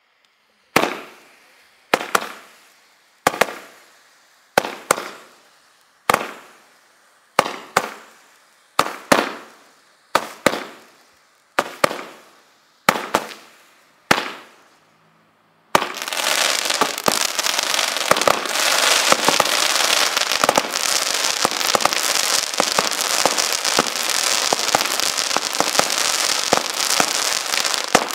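Fireworks: about eleven single sharp bangs, roughly one every second and a half, each trailing off with an echo. About halfway through, a dense, continuous crackling of fireworks takes over.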